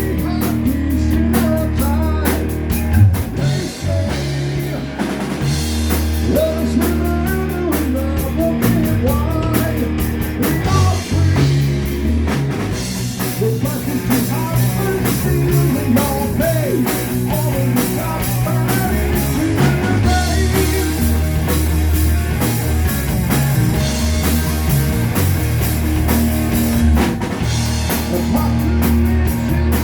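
Live rock band playing, with drum kit, bass and electric guitar.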